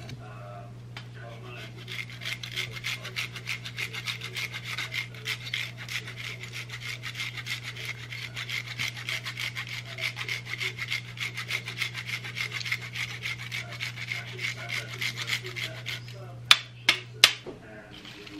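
A block of hard cheese being grated by hand over a bowl of pasta: quick, even rasping strokes against the grater. Three sharp knocks near the end are the loudest sounds.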